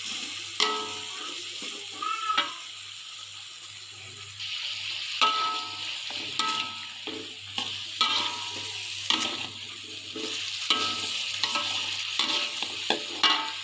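Food sizzling as it fries in a pan, with a steady hiss that grows louder about halfway through. A spatula repeatedly knocks and scrapes against the ringing metal pan as the food is stirred, about once a second.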